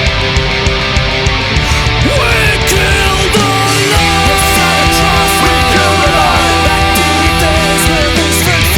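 Loud instrumental rock: distorted electric guitars, bass and drums. About two seconds in, a lead guitar line with pitch bends starts over the band.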